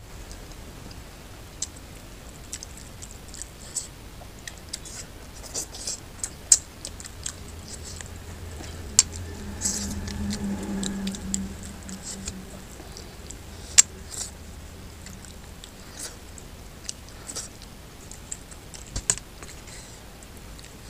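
Close-up eating sounds of goat head curry and rice eaten by hand: wet chewing, lip smacks and the squelch of oily meat pulled from the bone, with sharp clicks and smacks scattered throughout. A brief low hum comes about halfway.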